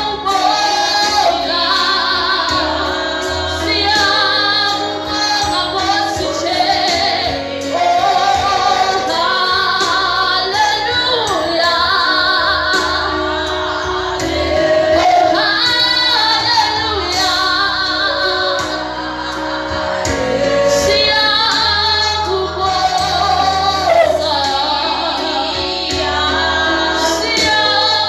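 Gospel music with a woman singing over a steady bass line.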